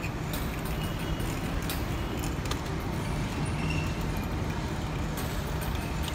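Large engine lathe running under power while a single-point tool chases a thread on a steel shaft: a steady low machine hum with a few faint ticks.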